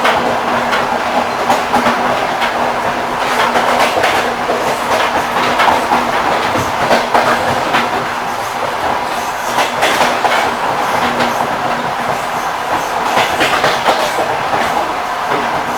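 Railway carriage wheels knocking over the rail joints as the train rolls along, with repeated irregular knocks over a steady rolling rumble and a faint steady hum.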